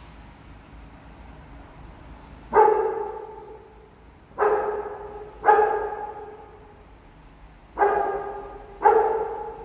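Bernese Mountain Dog search-and-rescue dog giving a bark alert: five deep barks, the first about two and a half seconds in, at a hidden person he has found in the rubble. Each bark echoes off the walls of a large empty concrete hall.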